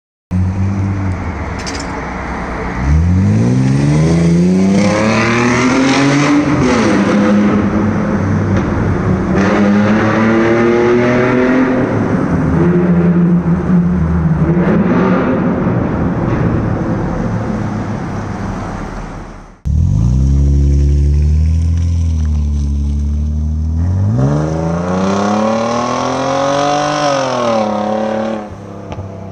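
Straight-piped Mercedes-Benz C240 (W202) 2.6-litre V6 accelerating hard, echoing in a concrete underpass. The note climbs in pitch, dips once, then runs steady and fades as the car moves off. After a sudden cut the engine runs low, then climbs in a second rev and falls away near the end.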